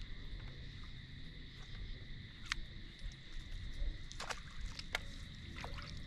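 Outdoor ambience on a boat: a low rumble with a steady high-pitched hum underneath, broken by a few short sharp clicks or knocks, about four of them from halfway through to near the end.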